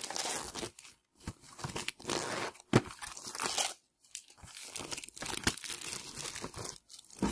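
Clear plastic wrap being torn and crinkled off a hard plastic laptop shell case, in irregular bursts with brief pauses and a few sharp clicks.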